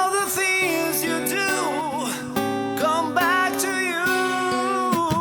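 A live rock band playing an instrumental passage, with a lead guitar playing sliding, bent notes with vibrato over held chords.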